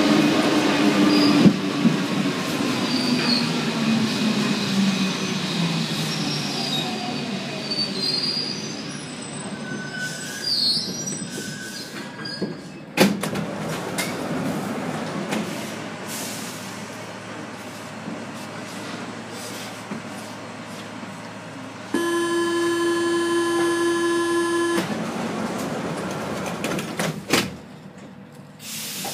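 Rubber-tyred Paris Metro Line 1 train running through the tunnel, heard from inside the car. Its motor whine falls in pitch over the first several seconds over steady running noise, with a few sharp knocks along the way. Near the end a steady electric hum sounds for about three seconds, then the running noise drops off as the train slows into a station.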